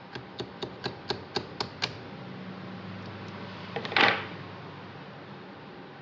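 Eight sharp taps, about four a second, then a short, louder clatter about four seconds in: hand work on metal parts while the demolition hammer is being repaired.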